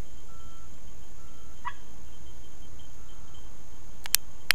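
Outdoor field ambience: a steady insect hum and a faint short note repeating about once a second, with one brief call about halfway through. Two sharp clicks come near the end.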